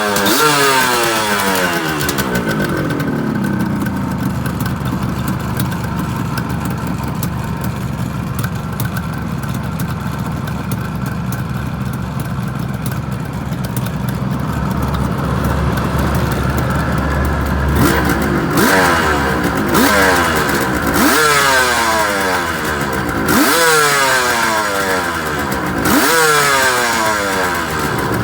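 Suzuki GT380's air-cooled two-stroke triple dropping back from a rev to an even idle, then blipped four times in the second half, each rise quick and falling back to idle. The freshly overhauled engine runs cleanly with no abnormal noise.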